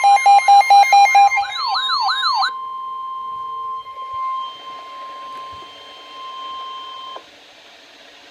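NOAA Weather Radio 1050 Hz warning alert tone, overlaid for the first couple of seconds by a siren-like alarm: pulsing beeps that turn into a fast warbling sweep. The steady tone then sounds alone until it cuts off suddenly about seven seconds in, leaving faint radio hiss.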